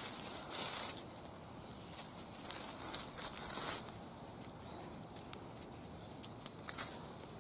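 Dry rustling and crinkling of forest litter and plant material as a person moves and forages through dry undergrowth. It comes in uneven bursts, with scattered sharp clicks and snaps, more of them in the second half.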